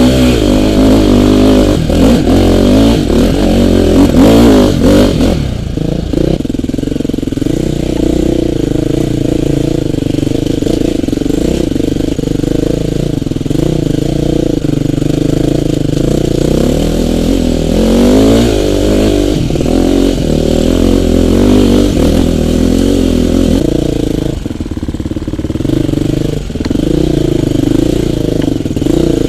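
Off-road dirt bike engine revving hard with rapid throttle blips for about the first five seconds, then running steadier and lower. Another burst of revving comes about two-thirds of the way in.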